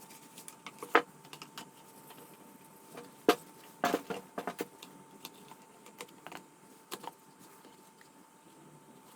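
Irregular light clicks and knocks of hard tools and parts being handled, with a quick cluster of them about four seconds in, over a faint steady whine.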